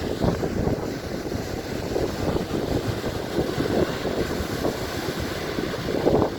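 Strong storm wind buffeting the microphone in uneven gusts over the noise of a rough sea.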